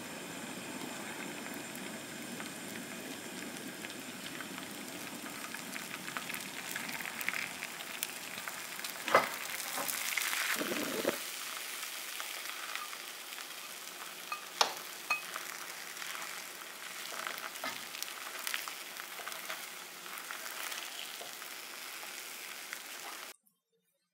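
Food sizzling steadily in a frying pan, with a few sharp clicks and taps of a utensil against the pan and a louder stretch about ten seconds in. The sizzle cuts off suddenly near the end.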